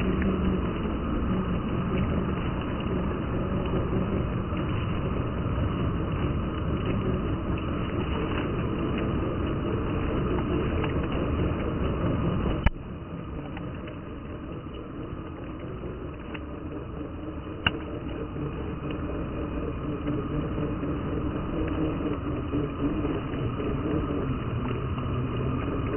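Small electric motor and gears of an MN86KS radio-controlled scale crawler whirring as it drives over muddy ground. The pitch wavers with the throttle. A sharp click comes about halfway through, after which the whirring is quieter, and another click follows a few seconds later.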